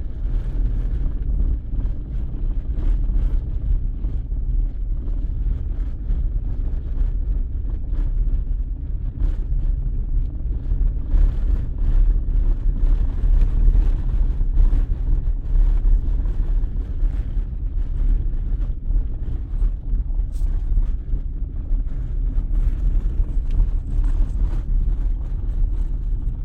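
ZAZ-1103 Slavuta on the move, heard from inside the car: a steady low road-and-engine rumble with frequent short knocks. The knocks come from the left side of the running gear and hit hard enough to jerk the steering wheel; a new steering rack has not cured them.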